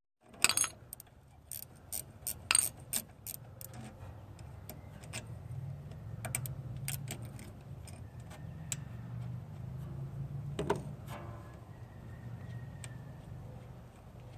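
Metal tools and engine parts clicking and clinking as the rocker arm is taken off the valve train of a Vanguard 14 hp engine, with a cluster of clinks in the first few seconds and a louder knock past the middle. A low steady hum runs underneath.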